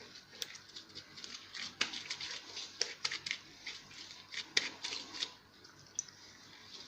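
Hands rolling and shaping soft gluten-free dough into a baguette on a wooden board: a run of irregular small sticky crackles and taps, busiest in the middle and trailing off near the end.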